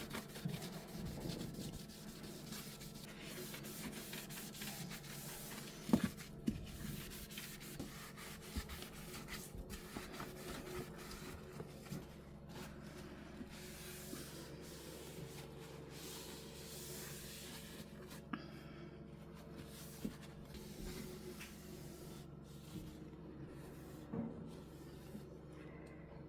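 Damp sponge with Cif cream cleaner scrubbing the stainless steel of a dishwasher: steady rubbing strokes, with a couple of brief knocks about six seconds in and again near the end.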